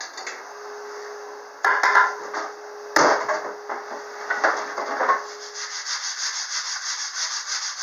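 A wooden board being recut with a saw: harsh rasping of the blade in the wood with a faint steady hum. Two louder cuts start suddenly, and quick rhythmic strokes of about four to five a second follow near the end.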